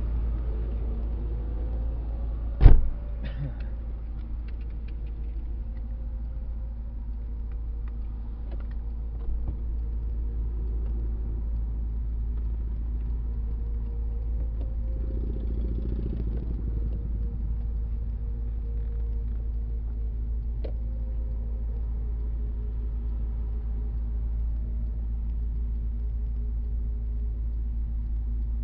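Steady low rumble of a motor vehicle, with one sharp, loud knock nearly three seconds in and a few light clicks after it.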